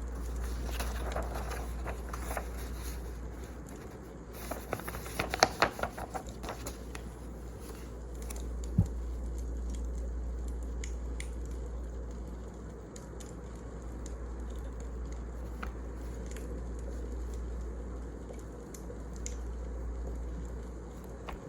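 Wood fire crackling, with a quick run of pops about five seconds in and a single sharper pop a few seconds later, over a steady low rumble.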